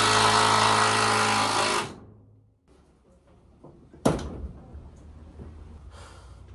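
Cordless drill driving a screw, running steadily for about two seconds, then winding down and stopping. A single knock comes about four seconds in, followed by faint handling noises.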